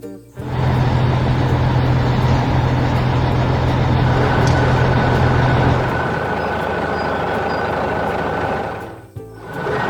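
Heavy construction vehicle engine running as a sound effect, a deep steady rumble. It starts suddenly just after the music stops, eases a little about six seconds in, and drops out briefly near the end before resuming.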